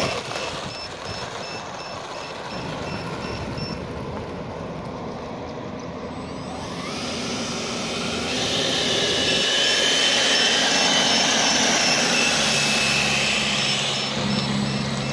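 The 90 mm twelve-blade metal electric ducted fan of an RC Viper Jet model, running as the jet taxis on tarmac after landing: a rushing whine that swells about halfway through and eases off near the end. A faint, quick repeating beep sounds in the first few seconds and again near the end.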